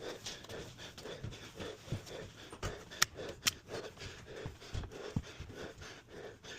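A man panting hard, about two breaths a second, from the strain of lifting and carrying a heavy appliance. A few dull bumps and two sharp clicks about three seconds in.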